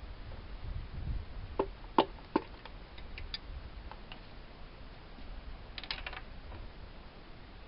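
Metal engine parts and hand tools clinking and knocking during an engine teardown: three sharp ringing knocks about one and a half to two and a half seconds in, a few lighter clicks, then a quick run of clicks near the end.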